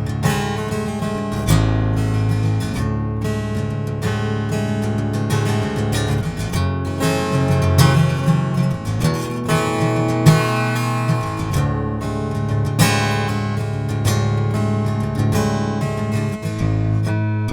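Steel-string acoustic guitar fitted with a miniSteve magnetic pickup and microphone, played as a demonstration: chords struck and let ring, with single notes picked between them.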